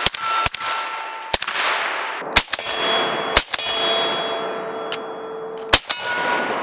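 Six suppressed shots from a BCM 11.5-inch AR-15 fitted with a SureFire RC2 suppressor, fired at uneven intervals over about six seconds. Each shot is a sharp crack with a short echo, and several are followed by the lingering ring of struck steel targets. The shooter calls the suppressed rifle quiet.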